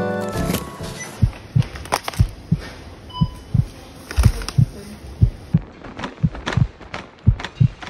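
Dull thumps and knocks, irregular at about two a second, from a phone filming inside a wire shopping cart as the cart is loaded and pushed along, jolting the phone.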